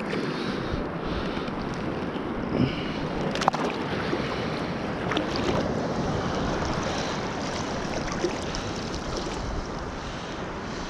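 Sea surf washing steadily on the shore, with wind on the microphone and a sharp click about three and a half seconds in.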